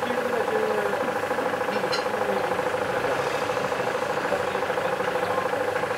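A machine running steadily, a hum with a fast, even knocking rhythm.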